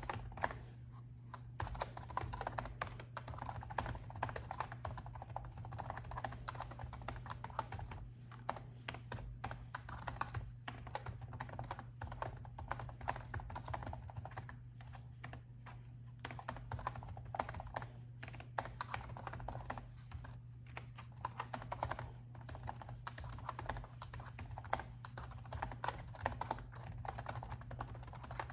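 Typing on a laptop keyboard: quick runs of keystrokes broken by short pauses, over a steady low hum.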